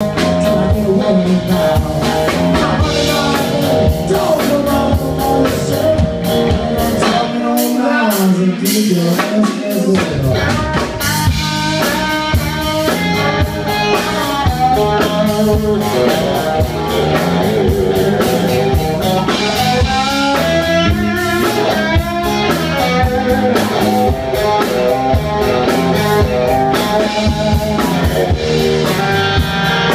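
Live rock band playing: electric guitar over drums and a heavy low end. About eight seconds in, the drums and low end drop out for about two seconds, leaving the guitar alone, then the full band comes back in.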